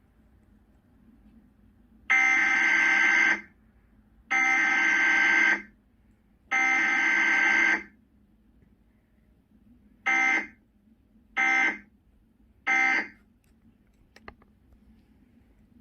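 Emergency Alert System SAME data header for a Cox Communications Required Weekly Test: three harsh, buzzy bursts of warbling two-pitch data tone, each just over a second long and about a second apart. After a short pause come three brief end-of-message bursts, each about half a second, that close the test without an attention tone or voice message.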